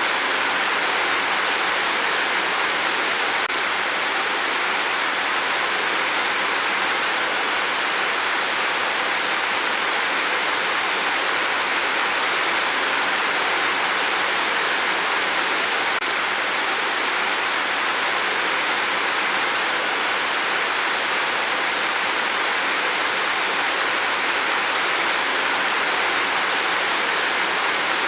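Steady heavy rain: a dense, even hiss with no separate drops standing out, unchanging throughout.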